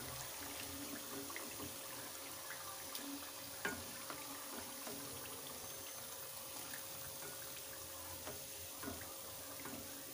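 Hot oil in a deep frying pan sizzling faintly and steadily as fried samosas are lifted out on a wire skimmer and drained. A few light clicks of the utensils against the pan, the loudest about three and a half seconds in.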